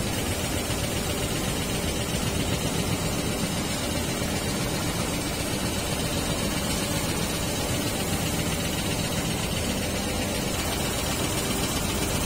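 Industrial multi-needle quilting machines running in a workshop: a steady mechanical din with a dense, rapid low clatter and no change in level.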